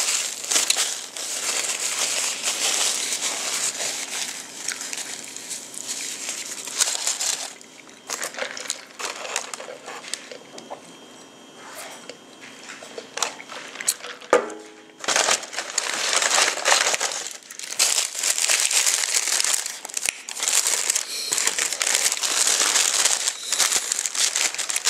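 Close-up crunching and crinkling of hard-shell tacos being bitten and chewed, with the paper wrapper crackling. It goes in two long stretches with a quieter pause between them, broken by a brief slurp through a drinking straw about halfway through.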